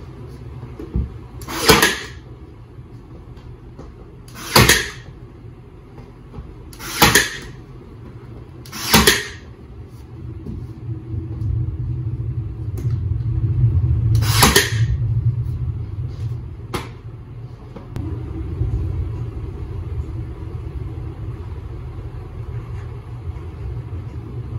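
Ryobi 18-volt cordless brad nailer firing five times, each a sharp crack, as it drives brads into laminate flooring planks on a wooden bar base. A low rumble grows louder in the second half.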